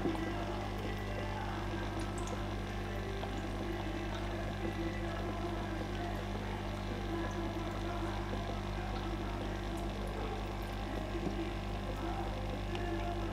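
Aquarium pump running with a steady hum and a faint sound of moving water.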